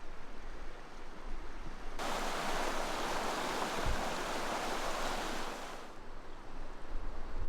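Rushing stream water: a steady, even hiss that starts abruptly about two seconds in and cuts off just as abruptly near six seconds. Before and after it there is only a low rumble.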